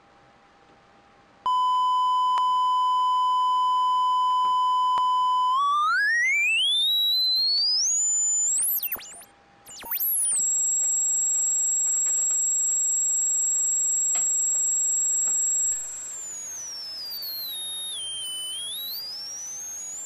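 Electronic test tone, the signal fed into the audio spectrum analyzer. A steady mid-pitched beep starts about a second and a half in and then sweeps up to a very high whistle. It cuts out briefly around the middle and returns as a steady high tone, which glides down and back up near the end.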